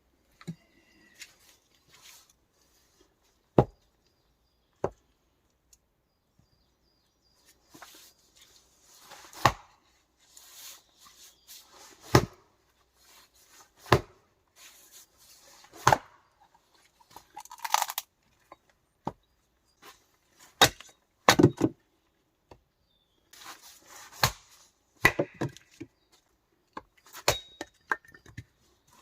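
Wood being chopped: a dozen or so sharp chops at irregular intervals of one to three seconds, with quieter rustling and scraping between them.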